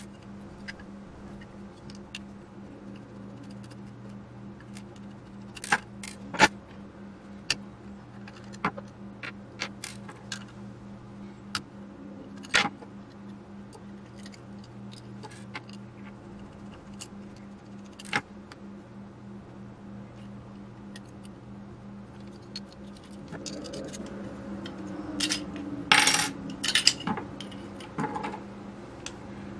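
Small metal screws and parts of a gyro unit clicking and clinking as it is taken apart with a screwdriver over a wooden bench: scattered single clicks, then a busier clatter of several knocks near the end as metal parts come apart.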